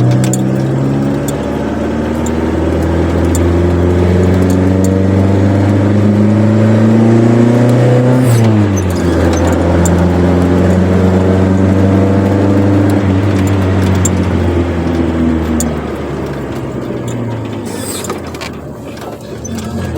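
Chevrolet Corsa Wind's four-cylinder engine with a sport exhaust, driving under load. Its pitch climbs steadily, drops sharply about eight seconds in as it shifts up, then holds fairly steady. Past the middle it falls and quietens as the throttle comes off, and starts to rise again near the end.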